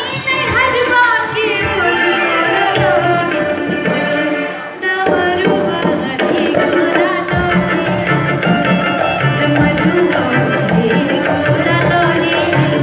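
A woman singing a Maithili nachari (devotional song) with tabla and keyboard accompaniment. The voice stops about five seconds in, and the tabla and keyboards carry on in an instrumental interlude.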